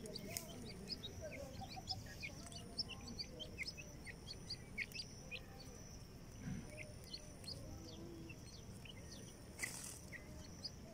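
Young grey francolin (partridge) chicks peeping: a dense run of short, high chirps, several a second, with a brief burst of noise about nine and a half seconds in.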